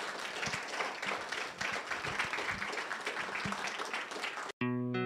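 Audience applauding, a dense patter of many hands clapping. It cuts off abruptly near the end, where electric guitar music begins.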